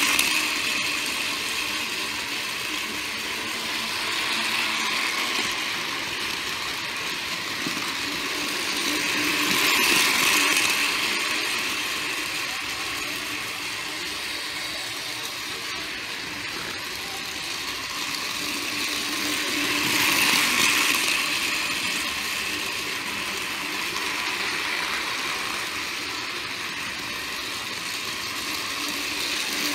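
Battery-powered toy trains running on plastic Plarail-type track: a steady motor whir with wheel rattle, swelling louder about every ten seconds as a train passes close by.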